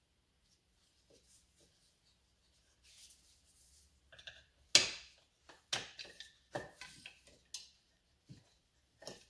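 Screwdriver and small chain-brake parts clicking and tapping against a plastic chainsaw clutch cover: faint rustling at first, then a handful of sharp clicks, the loudest about halfway through.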